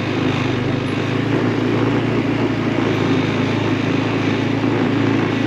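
ATV engine running steadily as it drives along a dirt trail, with a low, even engine hum and the noise of the ride over it.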